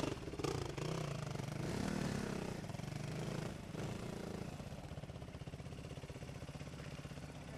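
Trail motorcycle engine running at low speed off-road, rising briefly in revs about two seconds in and then settling back to a steady, pulsing low note.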